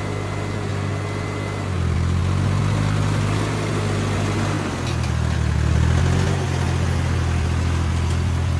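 Hattat orchard tractor's diesel engine running as it drives, getting louder about two seconds in and changing note about halfway through.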